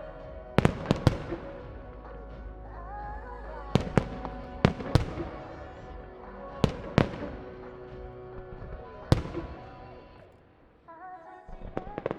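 Aerial firework shells bursting with sharp bangs, about ten of them in quick clusters, over a pop song with vocals playing on the show's loudspeakers. The music fades away near the end.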